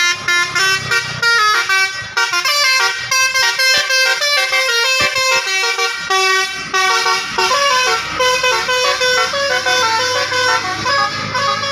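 Basuri multi-tone bus air horn (telolet) playing a fast melody of short, loud notes that jump in pitch from one to the next.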